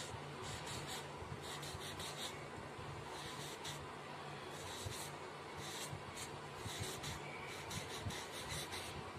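Marker pen writing on card, its tip scratching in short irregular strokes as the letters are drawn.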